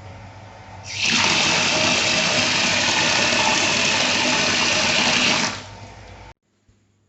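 Water running hard from a newly installed wall shower fitting: it comes on sharply about a second in, runs steadily for about four and a half seconds, then dies away.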